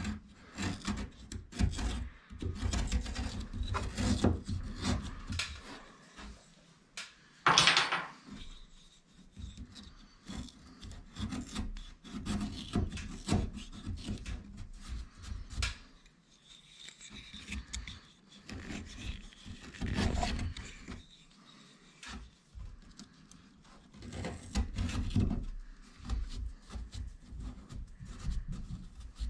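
Utility knife blade scraping and paring the wood and MDF of a door edge in irregular strokes, cutting the shallow recess for a ball catch's flange so it sits flush. One short, louder, sharp stroke stands out about seven and a half seconds in.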